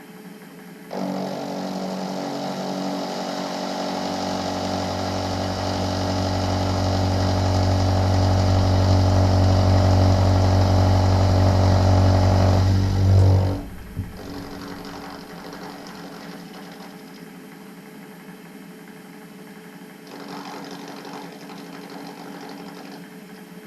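Milling machine taking a facing cut across two metal blocks clamped in a milling vice: the machine starts about a second in and grows steadily louder as the cut goes on, then drops off suddenly about thirteen seconds in as the cut ends, leaving a quieter machine hum.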